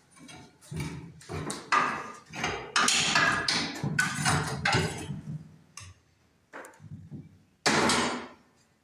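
A run of irregular knocks and clatter, dense for the first few seconds and ending with one louder burst near the end.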